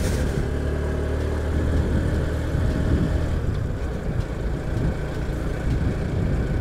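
Motorcycle engine pulling steadily in a low gear up a steep hill road, a continuous low rumble.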